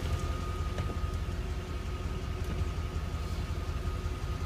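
1991 Chevrolet Corvette's V8 idling steadily, heard from inside the cabin, with a faint steady high whine alongside.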